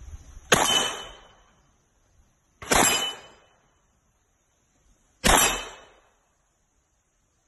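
Three single shots from a submachine gun, fired one at a time about two and a half seconds apart, each cutting in sharply and dying away quickly.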